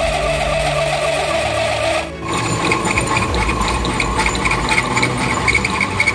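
Metal lathe running with a wheel hub spinning in its chuck, the drive giving a steady whine. About two seconds in the sound changes abruptly to a higher, rapidly pulsing mechanical rattle.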